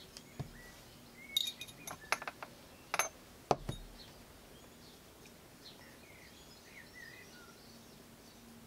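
Light clicks and clinks as small hard plastic parts of a vintage Talking Barbie doll body are handled and fitted together: a quick run of taps in the first four seconds, the loudest near the middle, then a few faint high squeaks.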